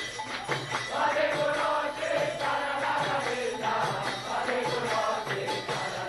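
Kirtan: a crowd singing a chant in unison over steady clashing of small hand cymbals (karatalas). The group voices swell in about a second in and ease off near the end, while the cymbals keep time throughout.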